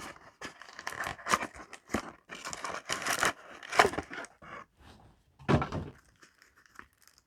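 Trading cards and a foil booster-pack wrapper being handled: a run of irregular crinkles and rustles, with one last rustle about five and a half seconds in.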